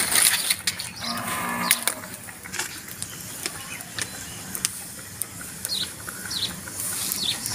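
A farm animal's short call about a second in, among scattered sharp clicks and bird chirps in the second half.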